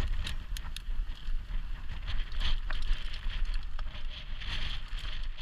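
Enduro mountain bike rolling down a loose, stony dirt trail: tyres crunching over gravel, with frequent sharp clicks and rattles from stones and the bike, and wind rumbling on the handlebar camera's microphone.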